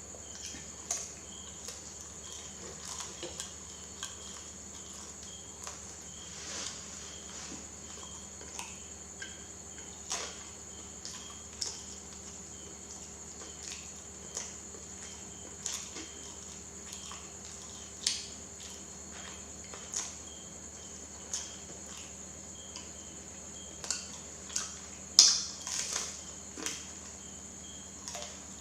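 Close-miked chewing and mouth sounds of someone eating banana: short, soft smacks and clicks every second or two, the loudest cluster a few seconds before the end, over a steady high-pitched hiss.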